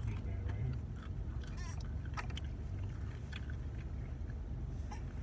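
Steady low rumble inside a car's cabin, with scattered small clicks and crackles of food being handled and chewed.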